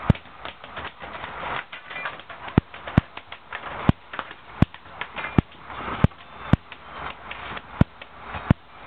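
An uneven series of sharp knocks, roughly one or two a second, over a steady rushing noise.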